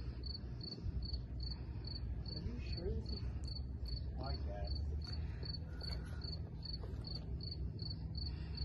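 A cricket chirping steadily, a short high-pitched chirp about three times a second, over a low rumble.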